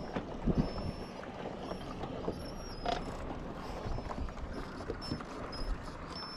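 Steady hiss of light wind and water around a fishing boat on open water, with a few faint taps and clicks from handling fishing tackle.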